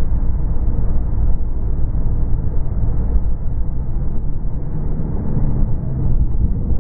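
Motorcycle riding at speed: heavy wind rush over the camera's microphone, with the engine's steady drone underneath.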